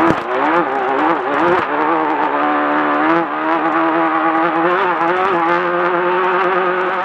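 Engine of a Class 10 off-road race car running hard, its pitch rising and falling unevenly for about the first two seconds, then holding nearly steady.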